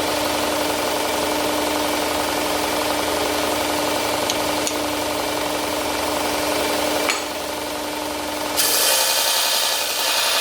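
2x72 belt grinder running with steel held to the belt, giving a steady grinding rasp over a motor hum. About seven seconds in the hum and grinding stop, and a second later a brighter, steady hiss starts.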